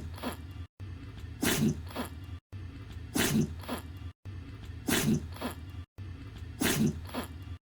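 A puppy sneezing, the same short clip looped about every 1.7 seconds with a brief cut to silence between repeats: each time a sharp sneeze followed by a softer second one, about four times in all.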